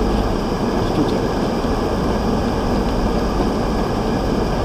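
Car driving along a flooded street, heard from inside the cabin: steady engine and tyre noise with water swishing under the wheels.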